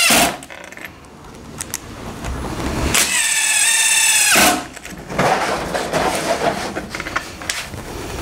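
Cordless drill/driver driving wood screws into a wooden beehive box. One motor run stops right at the start, and another runs for about a second and a half around three seconds in, its pitch dropping at the end. Rougher, uneven noise follows.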